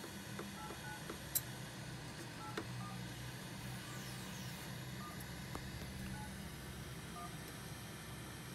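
Short electronic beep tones at scattered pitches, a few a second and irregular, over a steady low hum, with one sharp click a little over a second in.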